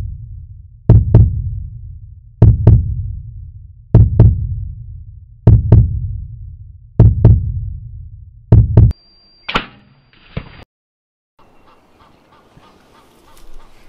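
Heartbeat sound effect: six double thumps (lub-dub), deep and booming, about one every one and a half seconds. It stops about nine seconds in, followed by a short burst with a thin high tone and then faint background sound.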